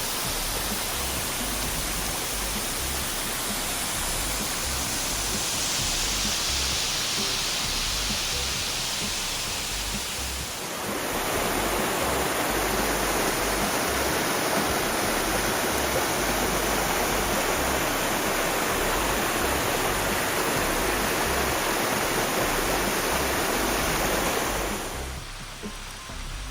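Steady rush of a waterfall's falling water, becoming fuller and deeper about ten seconds in and dropping away near the end.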